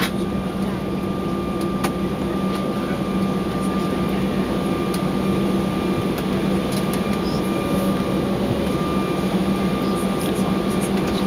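Steady cabin noise inside a passenger airliner: the rush of engines and air conditioning with a low hum and a thin high whine, and a few faint clicks.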